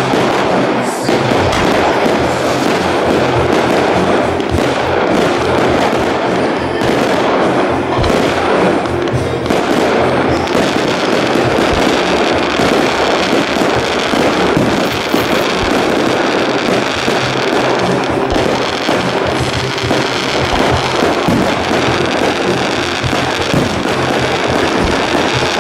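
Fireworks display: shells launching and bursting in quick succession, a dense run of bangs with no real pause, heard together with music playing alongside.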